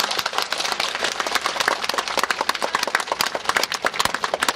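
Audience applauding: many people clapping steadily in a dense, irregular clatter.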